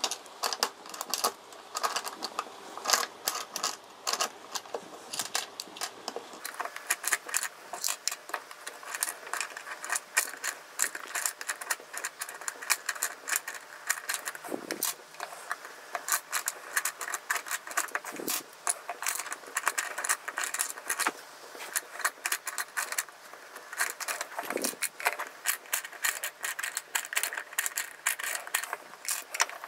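Plastic toy candy dispenser's knob being turned over and over, with rapid irregular clicking and ratcheting, and coated chocolate candies clattering out of the chute onto a wooden table.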